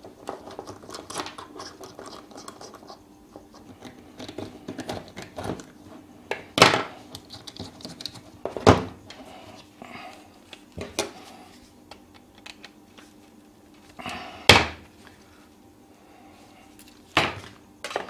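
Metal camera battery plate and mount hardware being handled and screwed onto a camera: light clicks and rattles of small metal parts, broken by five sharp knocks a few seconds apart, the loudest about six and a half, eight and a half and fourteen and a half seconds in.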